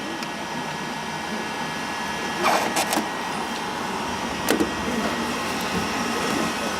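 A small electric motor whirring steadily, with a few light clicks and taps from handling wires and tools, twice near the middle.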